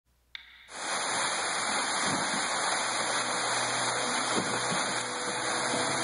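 Waterfall falling free off a rock face into a river pool: a steady rushing splash of water that starts abruptly under a second in, just after a brief click.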